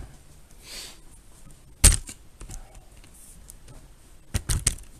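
Handling noise from the camera being moved: a short rustle, then sharp knocks and clicks, the loudest about two seconds in and a quick cluster of three near the end.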